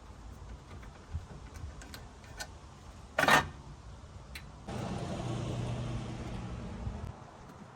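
A single sharp clunk, then a motor vehicle's engine running steadily for about two seconds over a low rumble.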